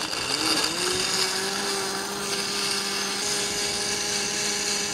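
Electric countertop blender switched on, its motor rising in pitch for about half a second, then running steadily at full speed as it churns ice and fresh mango into a cocktail.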